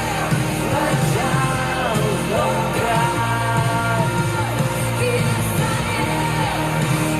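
Worship song with a singer holding long, bending sung lines over a steady band accompaniment.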